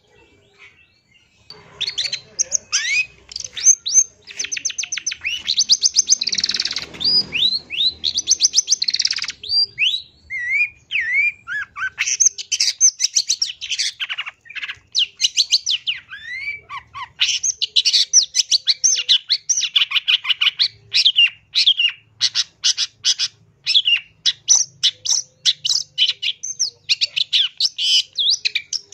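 Long-tailed shrike singing a loud, rapid chattering song of fast trills, harsh notes and short upslurred whistles, starting about a second and a half in and going on in quick bursts.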